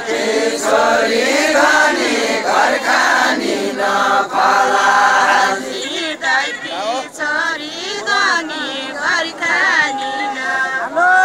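A group of voices singing a Deuda folk song together in the dohori exchange style. Long held notes come first, and after about six seconds the lines waver and turn.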